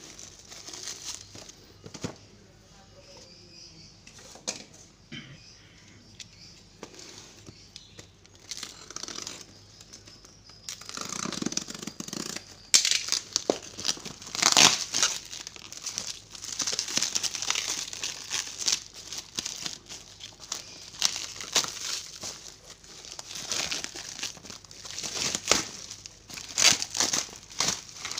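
Plastic shrink-wrap on a cardboard parcel crinkling and tearing as it is pulled off by hand. It is faint and sparse at first, then louder and almost continuous from about eleven seconds in.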